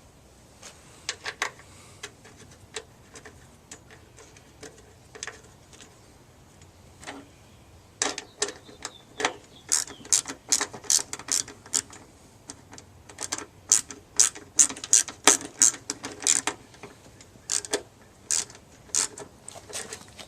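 Irregular sharp metallic clicks and taps of hand-tool work. A few come early, then a dense run of two or three a second through the middle, thinning out near the end.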